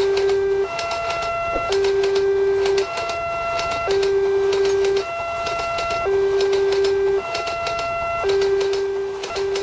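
Two-tone siren sound effect alternating between a low and a high note, each held about a second, over rapid irregular clicking.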